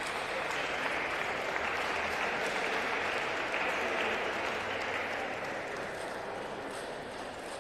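Crowd applauding in a sports hall after a point is won, swelling and then fading toward the end.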